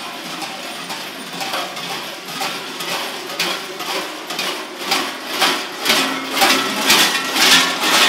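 Heavy bells worn by fur-clad, masked Klaubauf (Krampus) figures, clanging and jangling as they march past. The strikes come thick and uneven and grow louder over the last few seconds as the figures draw close.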